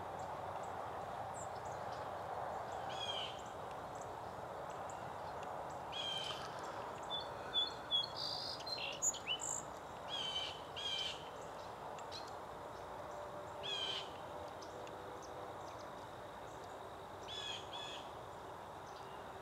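Small birds giving short chirping calls every few seconds, with a busier run of chirps around the middle, over a steady background hiss.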